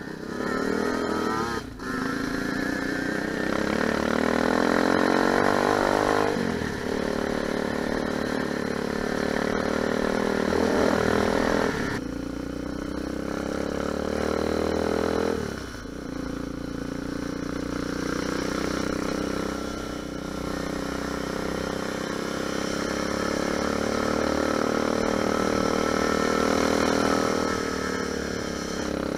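Lifan 250 four-stroke pit bike engine pulling hard under throttle, its pitch climbing over a few seconds and then dropping sharply, four or five times over as the rider shifts and rolls off.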